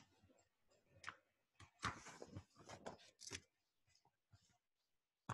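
Faint paper rustling as a picture-book page is turned by hand: a few soft swishes over about two seconds in the middle, then a single short click near the end.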